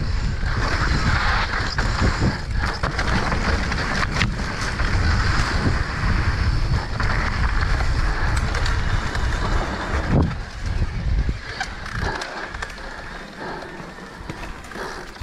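Mountain bike riding fast on dry dirt singletrack: wind rushing over the microphone and knobby tyres rolling on dirt. Short clicks and rattles come from the bike over bumps. The noise quietens over the last few seconds.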